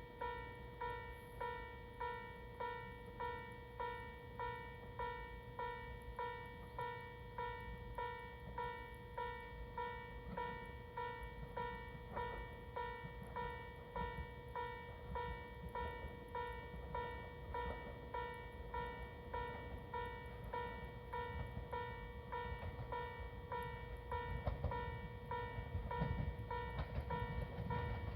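Japanese railway level-crossing warning bell dinging in a steady, even rhythm. In the last few seconds a low rumble from an approaching train grows louder under it.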